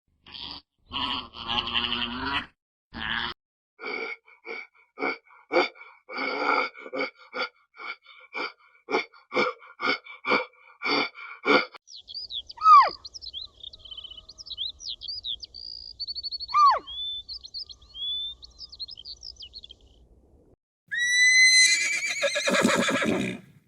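A string of short animal calls gives way to high chirps and whistles, and near the end comes a loud horse whinny that falls in pitch and trembles.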